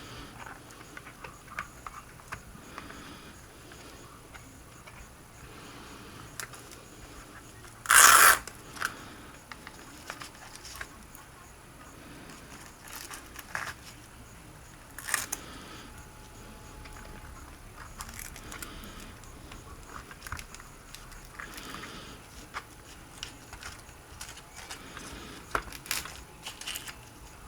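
Hand-handling noise from working a LiPo battery and its foam padding into an RC truck's battery tray: small plastic clicks, taps and rattles, with one louder short rattle about eight seconds in.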